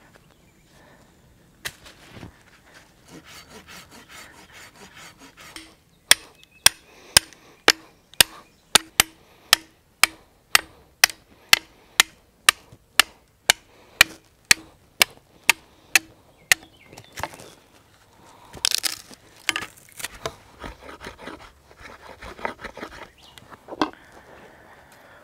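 Fiskars X7 hatchet chopping into a green sapling: a steady run of about two sharp wooden chops a second, some two dozen strokes lasting about ten seconds. A few seconds of scraping come before it, and irregular knocks and crackling of wood follow.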